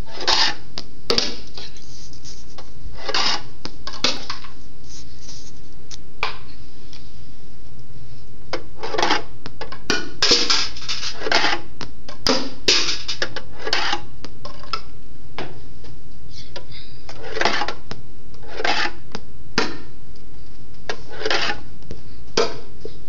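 Skateboard bearings dropped down a fingerboard ramp, clattering off a chair and rattling through cardboard tubes into a can: an irregular run of metallic clinks and short rattles, thickest in a burst around the middle.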